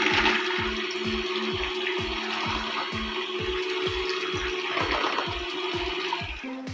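Electric hand mixer whirring as its beaters whip strained yogurt (suzma) and water until it foams, for ayran. Background music with a steady beat plays over it.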